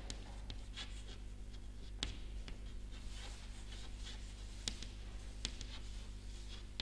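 Chalk writing on a blackboard: scratching strokes and scattered sharp taps of the chalk against the board, over a steady low hum.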